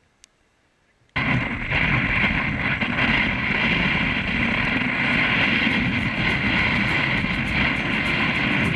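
After about a second of near silence, a sled sliding fast down a snow-covered street sets in abruptly: a loud, steady scraping hiss of snow and ice under the sled, with wind rushing over the microphone.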